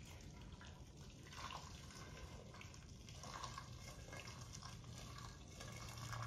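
Water pouring from an electric kettle into a pressure cooker pot, a faint steady splashing stream.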